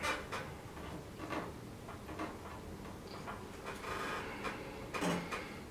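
Light clicks and soft rustles of cotton wool being pulled apart and pressed into a plastic funnel by hand, with a brief louder bump near the end.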